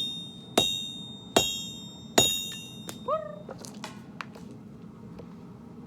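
Four hand-hammer blows on steel at the anvil, about three quarters of a second apart, each leaving a high ringing tone, then a few lighter taps. A short rising call sounds about three seconds in.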